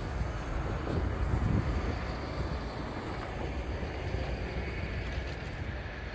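Antonov An-225's six Progress D-18T turbofan engines running at taxi power as the jet turns onto the runway. A steady jet whine over a low, uneven rumble.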